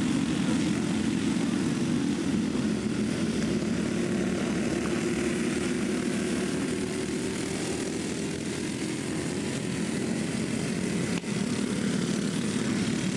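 Several racing dirt-kart engines running hard together, a steady buzzing drone as the pack laps the track, with a brief drop in the sound about eleven seconds in.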